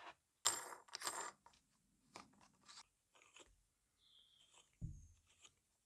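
Faint handling noises of metal parts being fitted by hand: a lock nut worked onto the threaded shaft of a cast-aluminium bearing housing, with short scrapes and clicks. The loudest are two quick scrapes about half a second and a second in, with a dull knock near five seconds.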